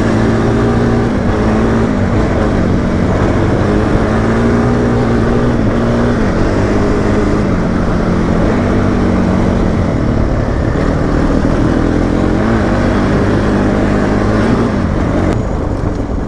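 Dirt bike engine running at low, slightly varying throttle, its pitch rising and dipping a little, then easing off near the end.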